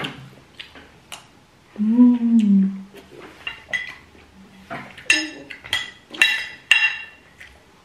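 Metal spoon and fork clinking and scraping on ceramic plates: a series of sharp clicks, several of them ringing. A short hummed voice sound, falling slightly in pitch, comes about two seconds in.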